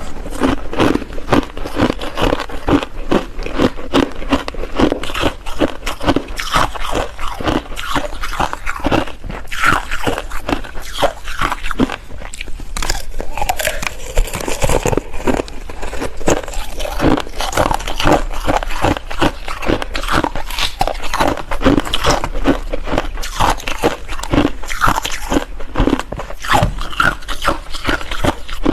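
Ice being bitten and chewed close to the microphone: rapid, irregular crunching and cracking that carries on without pause.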